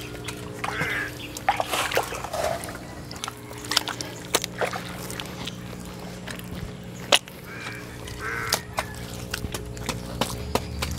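Wet mud being packed by hand and dug with a shovel: irregular wet slaps and sharp scrapes, over a steady low hum.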